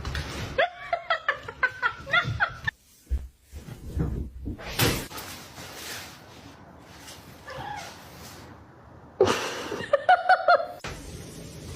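People laughing in quick, rhythmic bursts, once early and again near the end, with a low thump and some noisy rustling and clatter between.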